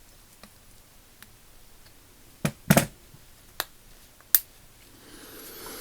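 Small sharp metal clicks and snaps of ratchet parts being handled as a snap ring is fitted back onto a Craftsman 99964 ratchet head: about six separate clicks, the loudest a quick double click near the middle. A soft rising hiss comes in near the end.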